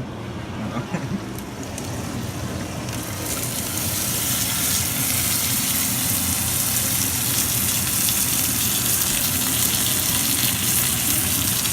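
Steak frying in a screaming-hot oiled pan, a steady sizzle that grows much louder about three seconds in and then holds.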